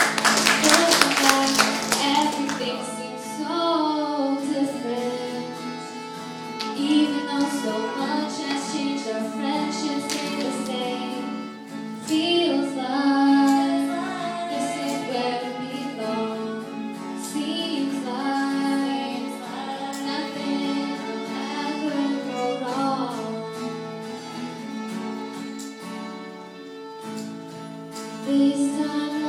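Live acoustic song: acoustic guitar played with a violin carrying a melody, and a female voice singing.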